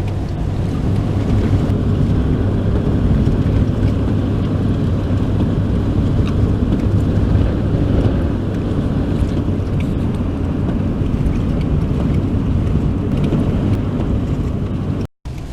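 Steady road and engine noise inside a moving car's cabin, with a low hum under it. The sound cuts out completely for a moment near the end.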